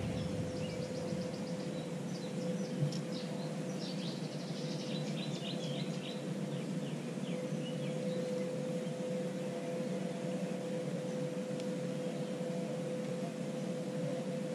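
Birds chirping in quick high series over steady outdoor background noise and a faint steady hum, with one soft click about three seconds in.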